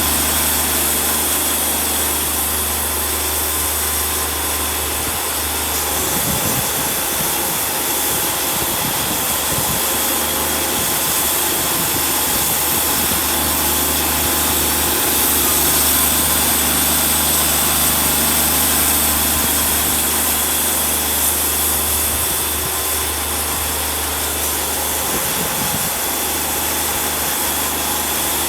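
Wood-Mizer portable band sawmill running, its engine droning steadily while the band blade saws through a log.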